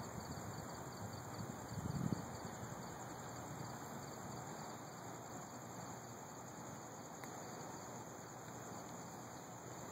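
Crickets chirping in a fast, even rhythm over a steady hiss of night air, with a brief low thump about two seconds in.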